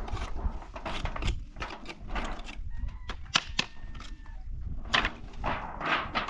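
Old wooden box being pried and broken apart by hand with a stick: a quick, irregular series of sharp wooden knocks and cracks as boards split and come loose.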